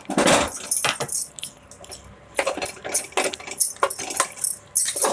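Steel ladle stirring thick, soft-cooked rice in an aluminium pressure cooker, clinking and scraping against the pot in irregular strokes.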